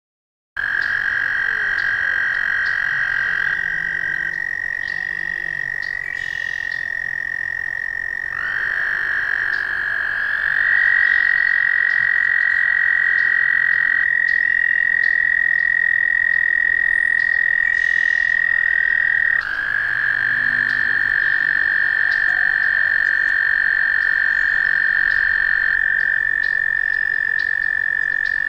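Male American toads giving their long, loud breeding trills. Each steady, high musical trill is held for many seconds, and two or more toads overlap at slightly different pitches. The first trill starts suddenly about half a second in, and fresh trills join later on.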